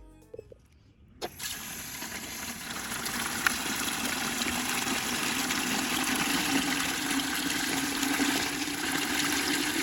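Steady rush of running water that starts abruptly about a second in, after a brief near-silence.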